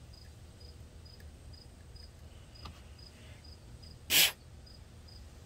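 A cricket chirping steadily, about two short high chirps a second. About four seconds in there is one brief, loud burst of noise.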